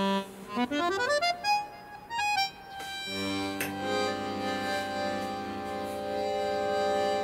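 Accordion background music in a comical solo style: a quick rising run of short notes, then a long held chord from about three seconds in.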